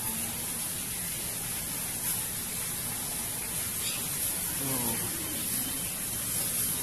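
Steady even hiss of background noise, with a faint voice heard briefly about five seconds in.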